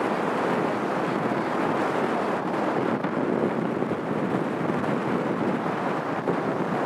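Steady rushing noise of wind and water aboard a harbour cruise boat under way, with no separate events.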